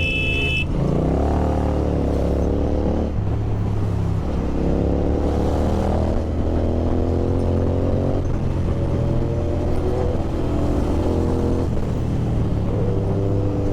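Kawasaki Z900 inline-four motorcycle engine through an Austin Racing aftermarket exhaust, accelerating up through the gears while riding. The pitch rises and falls back at each shift, five or so times. A brief high-pitched beep, like a horn, sounds at the very start.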